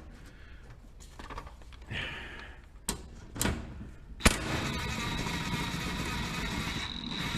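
Impact wrench driving a bolt into the undertray: a few light clicks, then about four seconds in a sharp knock and a steady whirring run with a high whine.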